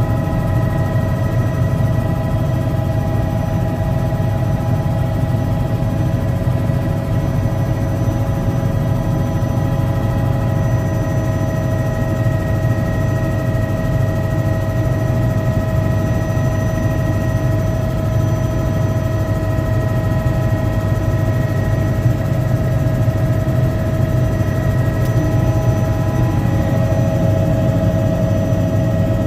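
Helicopter cabin noise in flight: a steady, loud drone from the rotor and engine, with several steady whining tones held above it.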